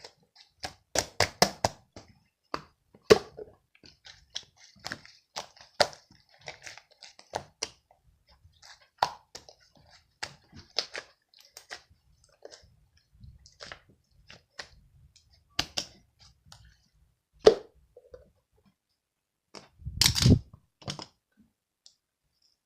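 Slime being squished and pressed by hand, making irregular sticky pops and crackles, with one louder, longer squelching burst near the end.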